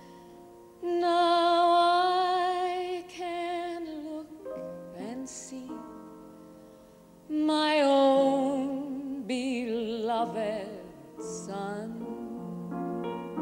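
A woman singing a sentimental ballad with wide vibrato over instrumental accompaniment: two long sung phrases, the first beginning about a second in and the second about seven seconds in, with the accompaniment carrying on between them.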